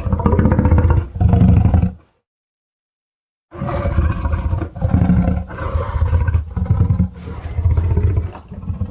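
Deep monster roar sound effects for the kaiju Baragon: a roar in two pushes ending about two seconds in, then after a second and a half of silence a longer run of pulsing roars and growls.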